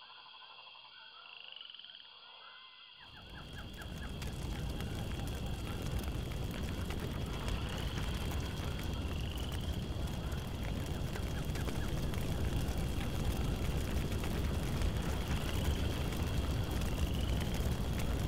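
Frogs calling over a steady high drone, then about three seconds in a loud, dense crackling rush swells up and holds: a large fire burning.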